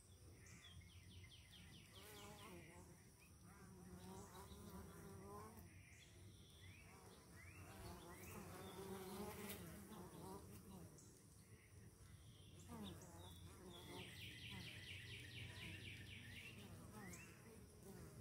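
Honey bees buzzing at the hive entrance as they fly in and out, a faint, wavering hum.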